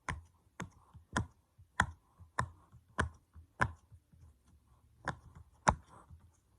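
Silicone pop-it fidget toy bubbles being pushed through one at a time from the side that pops, giving sharp pops about every half second, about nine in all, with a short pause before the last two.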